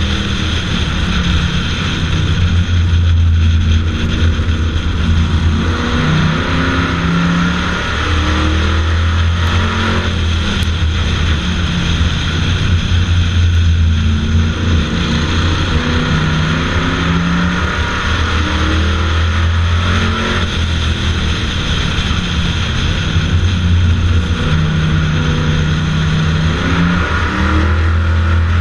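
Stock car racing engine heard from the car's hood-mounted GoPro, run hard around an oval, its revs climbing and dropping in a cycle about every ten seconds, over a steady rush of noise.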